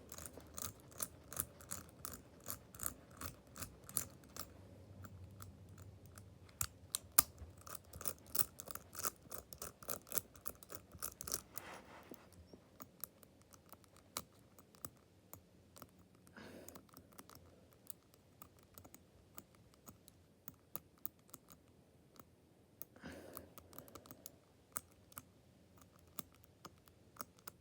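Small rapid clicks from the number wheels of a Desired Tools combination lock being turned by hand, each detent clicking as the wheel is worked. The clicks come thick and fast for about the first twelve seconds, then more sparsely, with a few short rubbing sounds.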